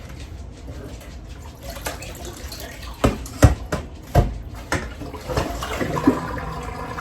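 Soaking water being drained off small whole potatoes into a sink, with several clunks of the potatoes and pot about halfway through, then water running steadily.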